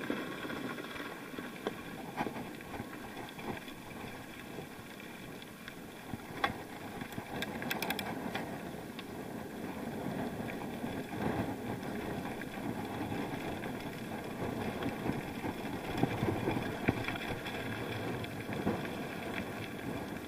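Bicycle rolling over a rough gravel track, the tyres crunching steadily and the bike rattling with scattered small knocks, with wind on the action camera's microphone.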